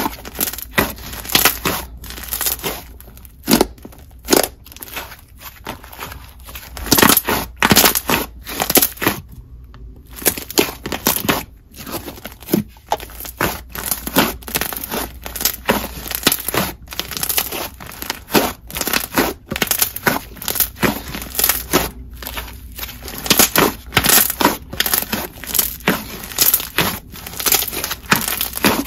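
Thick, glossy pink slime, a clear base swirled with white glue slime, squeezed and stretched by hand. It makes many sharp clicks and bubble pops at irregular intervals.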